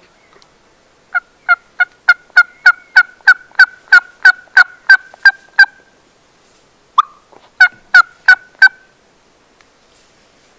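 A series of loud turkey yelps at about three a second, each note breaking from high to low. After a short pause comes a single note, then a shorter run of four yelps.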